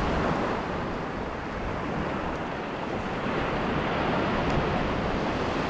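Ocean surf breaking and washing up on a sandy beach in a steady wash of noise, with wind rumbling on the microphone.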